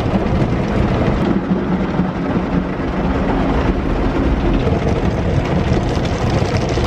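Automatic car wash heard from inside the car: cloth brushes scrubbing and slapping against the side window and body while water sprays over the car, making a loud, steady wash of noise.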